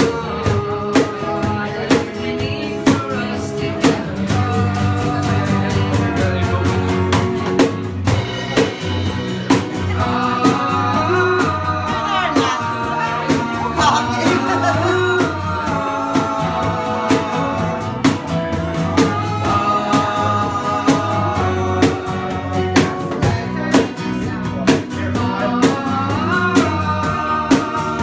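Band music: a singer over guitar and a steady drum beat.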